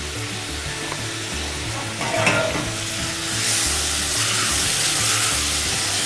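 Cubed meat frying with onions and garlic in a pot, stirred with a spatula: a steady sizzle that grows louder a little past halfway, with a knock of the spatula against the pot about two seconds in.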